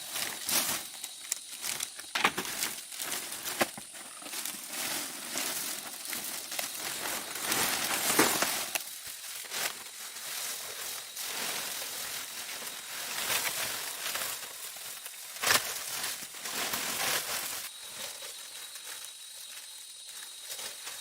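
Irregular rustling and crinkling as materials are handled, with a few sharp knocks.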